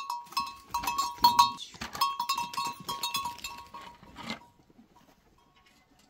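A bell on a sheep clanking and ringing in quick, irregular strikes as the sheep move about, with a sheep bleating once about four seconds in.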